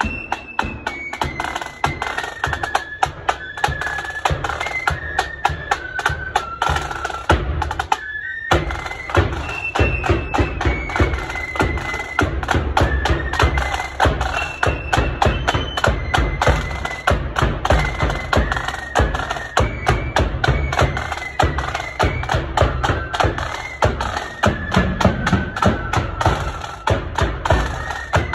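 Marching flute band playing a tune on flutes over rapid side-drum rolls and a bass drum beat. The music drops out for a moment about eight seconds in.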